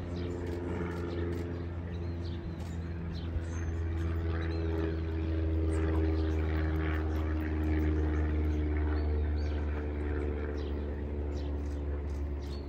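A steady low engine drone with a pitched hum above it, swelling a few seconds in and easing off again. Birds chirp faintly in the second half.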